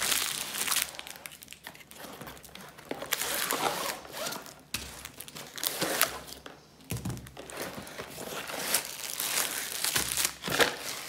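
Plastic wrapping crinkling and rustling in irregular bursts as cling-wrapped bundles of diamond-painting drill bags and rolled canvases are handled and slid out of a cardboard box.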